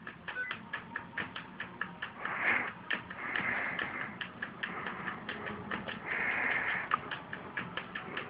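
A cat's paws swiping and rubbing on a laptop screen in a few short scratchy swishes, over a rapid, even ticking about six times a second.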